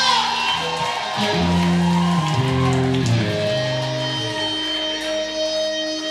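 Live rock band playing, with electric guitar holding long ringing notes.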